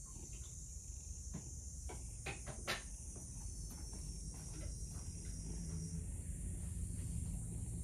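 Faint household clatter: a few sharp clicks and knocks about two to three seconds in, over a steady high-pitched hiss and a low hum.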